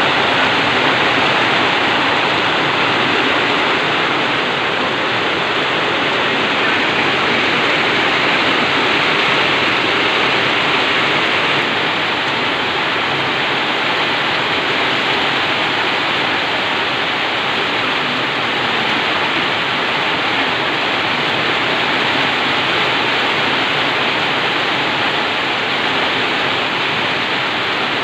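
Heavy rain pouring down in a steady, dense hiss that eases slightly about twelve seconds in.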